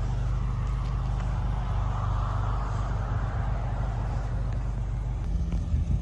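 Predator small gas engine on a homemade lawnmower running steadily; about five seconds in its note changes and turns rougher and uneven.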